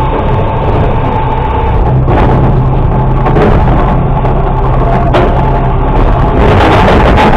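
A Mack LR600 garbage truck with a Labrie automated side-loader runs steadily, its engine and hydraulics humming with a higher steady whine, while the arm lifts a cart. There are clanks about 2 and 5 seconds in. Near the end the cart tips and trash tumbles and bangs into the hopper with a louder clatter.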